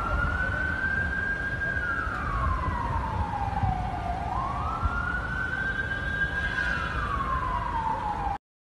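A siren wailing slowly: its pitch rises, holds high, then falls, twice over, above a steady low rumble of background noise. It cuts off suddenly near the end.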